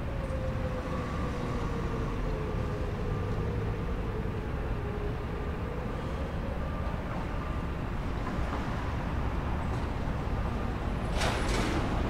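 Distant Whelen outdoor warning sirens in wail, heard faintly as one tone slowly falling and then rising again, over a steady low traffic rumble. A short loud hiss comes near the end.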